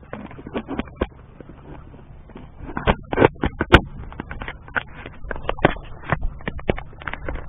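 Fingers handling and repositioning a small camera right at its microphone: a quick, irregular run of scrapes, clicks and knocks, the sharpest one about three and a half seconds in.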